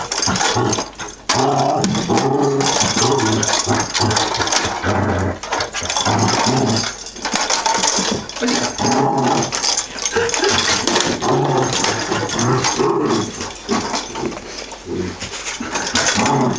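Collie puppy making low pitched play noises at a toy, in stretches broken by short pauses.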